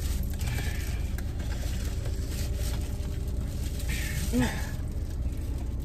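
Steady low hum of a car's running engine and air conditioning heard inside the cabin, with faint handling noises of takeout food and one brief vocal sound about four and a half seconds in.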